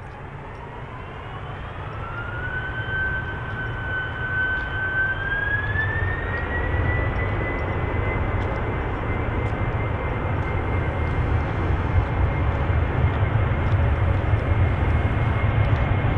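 Jet airliner's engines spooling up. A whine rises in pitch in two steps over the first seven seconds, then holds steady, while a low rumble grows steadily louder as thrust builds.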